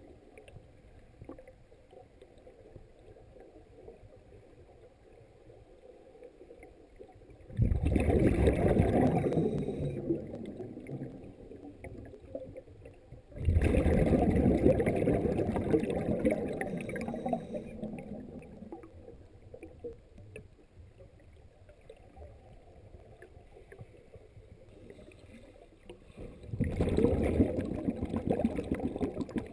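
Scuba diver's exhaled breath bubbling out of the regulator, heard underwater through a camera dive housing: three bursts of bubbling, about seven, thirteen and twenty-seven seconds in, each starting suddenly and fading over a few seconds.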